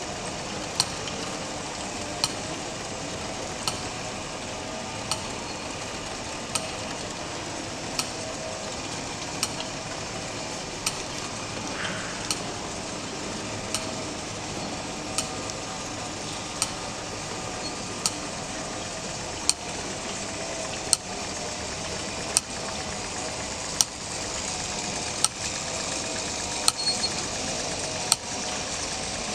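Mechanism of a moving nativity scene running: a steady hiss with a sharp click about every one and a half seconds.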